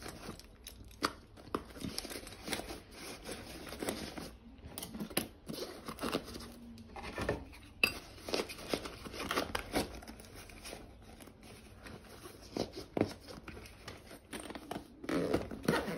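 Handling of a Klein Tools nylon backpack tool bag: fabric rustling with irregular clinks and knocks of metal hand tools as they go in and out of its pockets.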